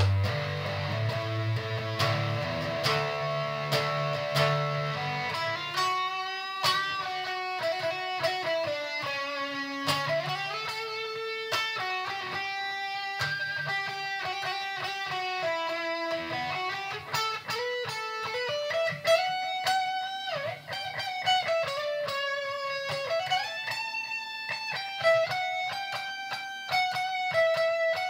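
Electric guitar played solo: lower, fuller notes for the first six seconds or so, then a single-note melody with bent and sliding notes.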